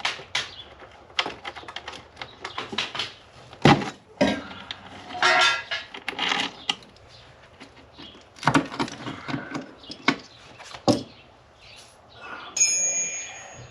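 Irregular clicks, knocks and metallic clatter of hand tools and loose metal parts being handled, with a couple of louder knocks and a short metallic ring near the end.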